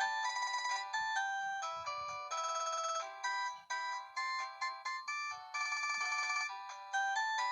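Tevion/Medion MP2410 mobile phone, a rebranded Philips S220, playing one of its ringtones: a fast electronic melody of short notes, with a few longer passages of rapidly trilled notes.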